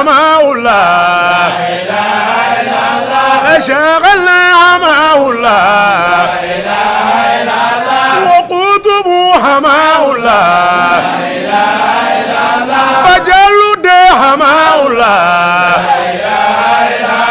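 A man chanting Islamic devotional verses in a loud voice, holding long notes that waver and bend up and down, with short breaths about eight and a half and thirteen and a half seconds in.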